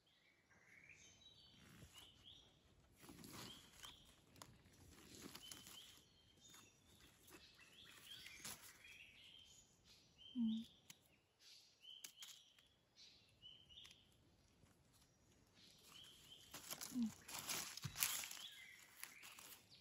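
Faint rustling of dry leaf litter and soft handling noises as mushrooms are cut from the forest floor with a small knife, louder about halfway through and near the end. Short faint chirps recur throughout.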